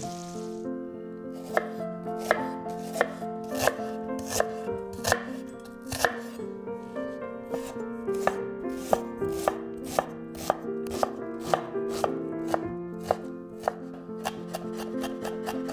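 A chef's knife slicing a shallot on a wooden cutting board: evenly spaced knife strikes about one and a half a second. Near the end they turn into quick, rapid chopping as the slices are minced.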